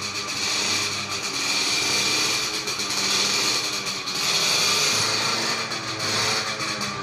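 A power tool running continuously, its sound swelling and easing every second or two as the load changes.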